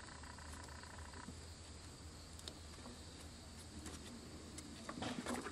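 Quiet background: a faint steady low hum and hiss, with a few soft handling rustles and clicks near the end.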